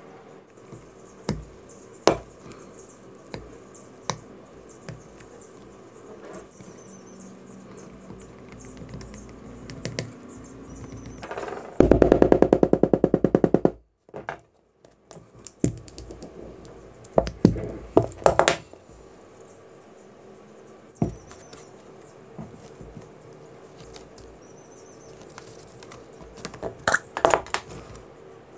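Leather-crafting work at a bench: scattered clicks and taps of tools and leather being handled, with a fast, even rattle for about two seconds near the middle.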